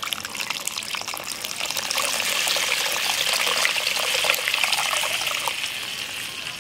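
Tamarind water poured through a straining hand into a clay pot of curry base, splashing and trickling. It starts suddenly, is loudest in the middle and eases off near the end.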